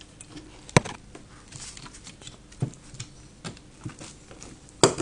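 Hard plastic clicks and light knocks as a Brother MFC-9330 fuser roller is worked free of its hinges and lifted out of the fuser unit: a sharp click about a second in, a few soft knocks and rustles, and the loudest click just before the end.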